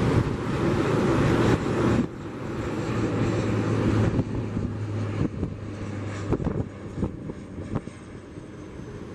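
Twin-engine turboprop airliner climbing away overhead: a steady propeller drone that fades as the aircraft recedes. A loud rushing noise fills the first two seconds and stops abruptly.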